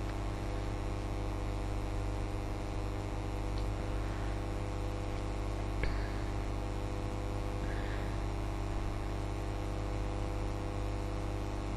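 Steady electrical mains hum with its overtones, unchanging throughout, and a faint click about six seconds in.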